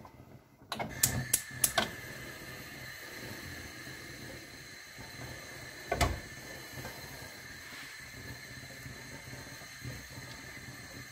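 Kitchen stove being turned on: three sharp clicks about a second in as a steady hiss starts up and runs on. A single knock about six seconds in, as a pan is set down on the hob.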